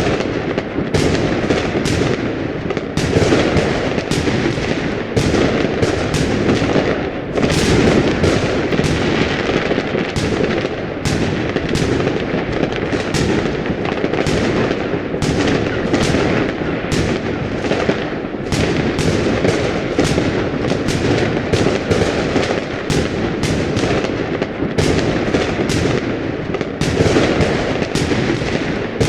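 Fireworks going off in a dense, continuous barrage: many sharp bangs and crackles, several a second, overlapping without a break.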